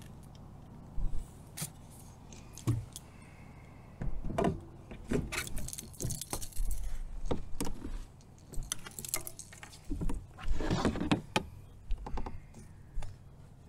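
Irregular clicks, knocks and rustling as gear and the landed pike are handled in a plastic fishing kayak, with a few longer scraping stretches about four, six and eleven seconds in.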